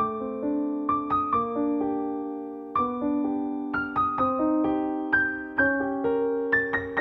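Soft piano music: a slow melody of single struck notes, each fading, over held lower notes.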